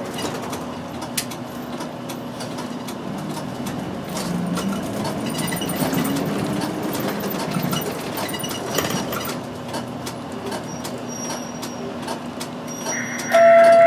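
Interior of a diesel route bus under way: engine running with rattles and clicks from the cabin, its pitch rising as the bus gathers speed about five seconds in. Near the end a loud electronic chime sounds, the on-board chime that comes before an announcement.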